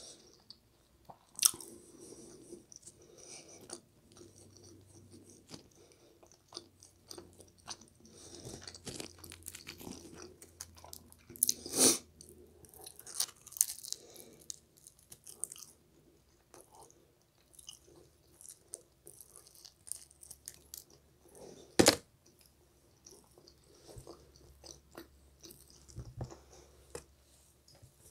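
Pizza being bitten and chewed close to the microphone: soft, wet mouth sounds with scattered small clicks and a few sharper crunches, the loudest near the middle and again about three-quarters through.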